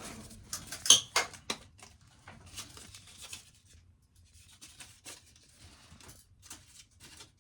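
Scattered clicks, taps and rustles of things being handled close to the microphone, loudest and busiest in the first second and a half, then sparse and quiet.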